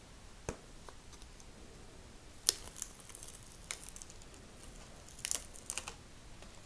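Paper backing being peeled off an adhesive rubber grip wrap: scattered crinkles and sharp ticks of the stiff paper, the loudest about two and a half seconds in and a quick cluster a little past five seconds.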